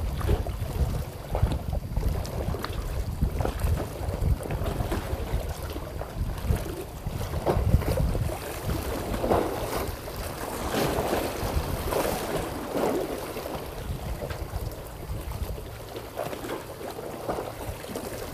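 Wind buffeting the microphone over the wash of sea water against a breakwater, rising and falling in gusts.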